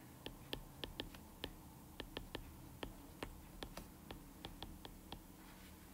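Light, irregular clicks of a stylus tip tapping and striking a tablet's glass screen during handwriting, about twenty in quick, uneven succession.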